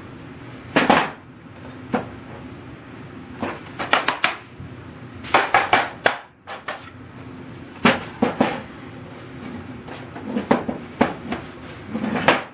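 Irregular clusters of knocks, clacks and short scrapes from parts and tools being handled on a workbench.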